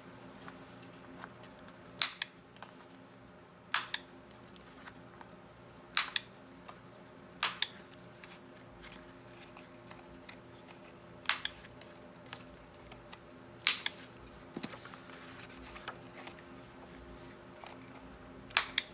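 Sharp, isolated clicks and snaps from handling and cutting paper and card at a craft table, about seven spread unevenly over the stretch, over a faint steady hum.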